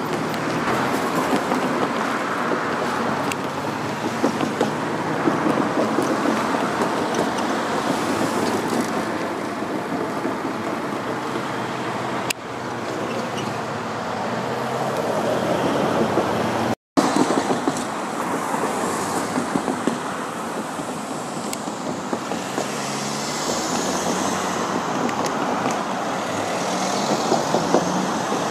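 Road traffic: cars driving past close by, a steady noise that swells and fades as vehicles pass, with a brief dropout just past halfway.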